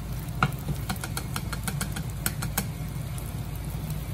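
Beaten egg frying in a square tamagoyaki pan over a gas burner: a steady low rumble with irregular sharp clicks and pops, most of them in the first two and a half seconds.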